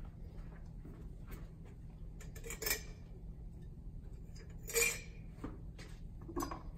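Small hard objects being picked up and handled: a few short clinks and knocks, the two sharpest about two and a half and five seconds in, over a low steady hum.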